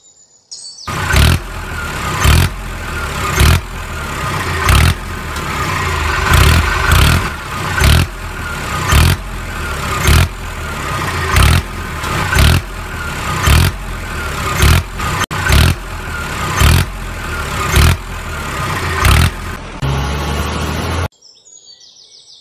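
A tractor engine running hard, rising and falling in a repeating pattern about once a second. It starts abruptly about a second in and cuts off just before the end.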